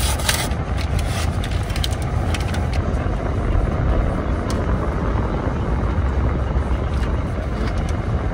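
Steady low rumble inside a car cabin with the engine running, with a few faint crackles of a plastic ice-cream wrapper being handled.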